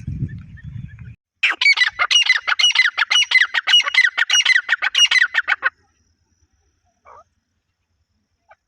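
Francolin (teetar) calling in a fast, loud run of sharp down-slurred notes, about six or seven a second, for roughly four seconds, then stopping abruptly. A low rumble comes before it in the first second.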